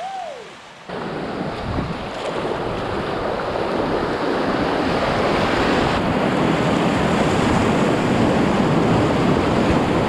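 Whitewater rushing and churning around a kayak as it runs a rapid, heard close to the helmet-mounted microphone; it cuts in suddenly about a second in and swells slightly. At the very start there is a short rising-and-falling tone.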